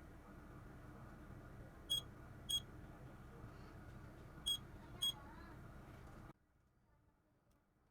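Two pairs of short, high-pitched electronic beeps over faint steady background noise, which cuts to near silence shortly before the end.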